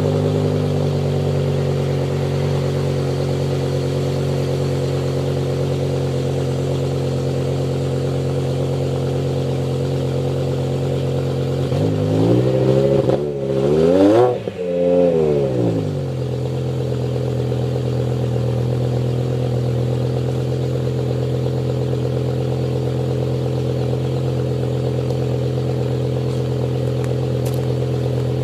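BMW M6's V10 engine with a Dinan exhaust idling after a cold start, heard from behind the quad tailpipes. The idle settles slightly lower near the start. About twelve seconds in it is revved twice in quick succession, then drops back to a steady idle.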